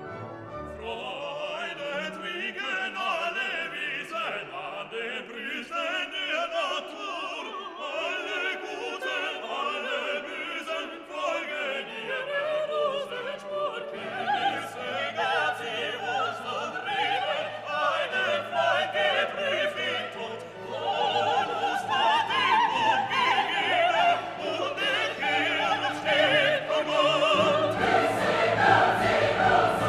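Background music: a classical orchestral piece with operatic or choral singing, growing fuller and louder about two-thirds of the way through.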